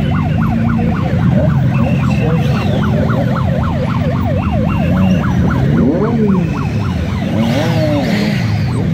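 An electronic siren yelping in quick rising-and-falling sweeps, about three a second; after about six seconds it changes to slower single rising-and-falling wails. Under it, motorcycle engines run steadily at low revs.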